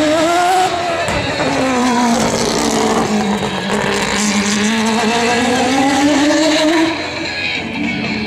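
Mazda 787B race car's four-rotor R26B rotary engine revving as the car drives around the course. Its pitch climbs in the first second, falls back, holds, climbs again and drops away about seven seconds in.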